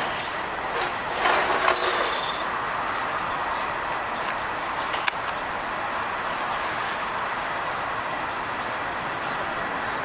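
Small songbirds feeding on the ground: a few short, high chirps near the start and a brief rapid trill about two seconds in, with wing flutters, over a steady background hiss.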